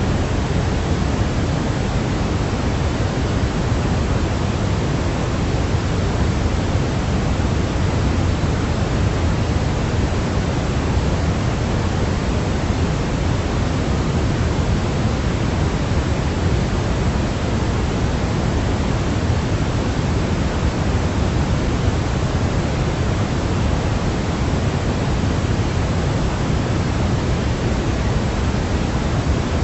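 Steady synthetic noise of the kind sold as baby sleep sound, weighted toward the low end like pink noise, with no change at all.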